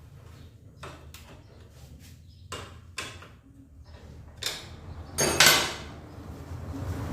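Parts and tools being handled at a workbench: a string of light knocks and clicks, the loudest a short scraping clatter about five seconds in.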